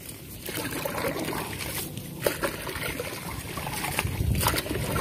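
Water sloshing and trickling, with a few light knocks.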